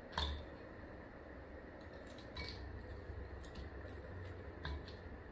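Small clicks and taps from raw shrimp being peeled by hand over glass bowls: the sharpest comes just after the start, with lighter ones about two and a half and four and a half seconds in, over a faint steady hum.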